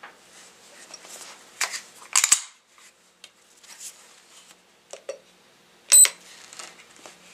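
Handling noises from an electronic trigger pull gauge and a pistol on a padded bench mat: scattered light clicks and knocks. About six seconds in comes a short, high electronic beep, the loudest sound.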